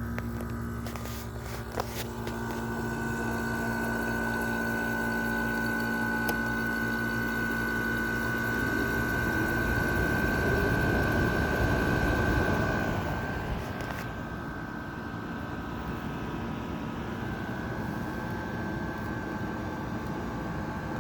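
General Electric 5,050 BTU window air conditioner being switched back to cool, with a click about two seconds in. Its compressor starts up under the fan, and the unit runs louder and rougher for about ten seconds before easing to a steady hum.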